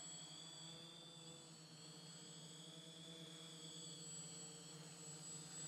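Faint, steady hum of a hovering XAircraft X650 V4 quadcopter's electric motors and propellers, its tones wavering slightly in pitch as the motors adjust.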